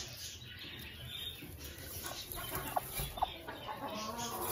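Chicken clucking faintly: a few short clucks, the clearest a little under three seconds in and again about half a second later.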